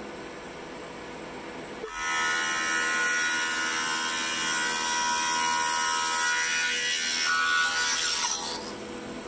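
Thickness planer running, its cutterhead biting into a glued-up strip board about two seconds in. The loud planing noise with a steady high whine holds for about six seconds, then drops back to the quieter sound of the machine running unloaded.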